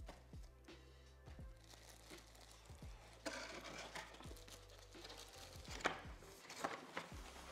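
Plastic wrapping crinkling and rustling as a cardboard box is handled, starting about three seconds in, with a few sharp crackles near the end. Background music with a deep bass beat plays underneath.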